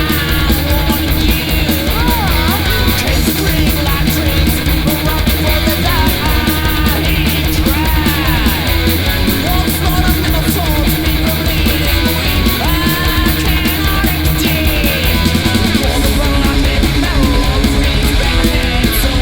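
Thrash/speed metal band recording: fast, driving drums under distorted electric guitars and bass, with notes bending up and down over the top. The riff changes about 16 seconds in.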